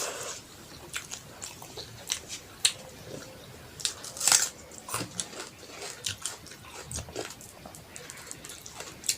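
Close-miked mouth sounds of eating a rice-and-curry meal: irregular wet chewing clicks and crunches, loudest about four seconds in.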